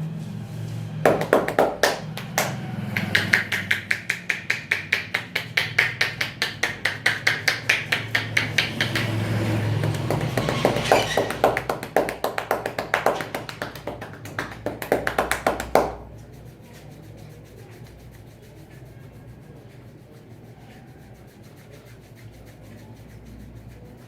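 Rapid rhythmic hand strikes of a percussive head-and-neck massage, several sharp slaps or taps a second. They run for about fifteen seconds and stop suddenly.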